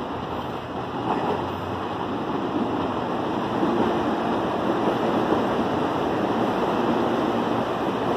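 CPTM Série 8500 electric commuter train running past along the station platform: a steady rumble that grows louder over the first few seconds as the cars come alongside, then holds.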